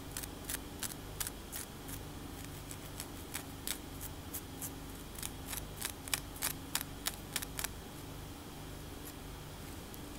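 Long acrylic fingernails scratching a cornrowed scalp in quick, crisp strokes, about two or three a second, which stop a couple of seconds before the end. A steady low hum runs underneath.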